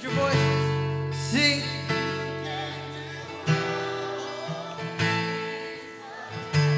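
Live worship band playing between sung lines: acoustic guitar strumming chords over sustained bass notes, the chord changing about every one and a half seconds, with a brief sung phrase about a second and a half in.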